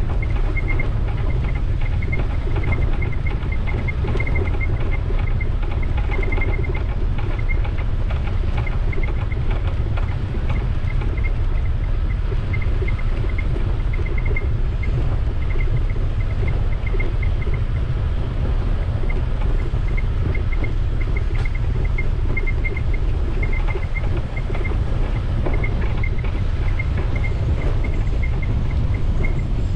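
Steady low rumble of wind buffeting the microphone while riding, with a faint high ticking that comes and goes throughout.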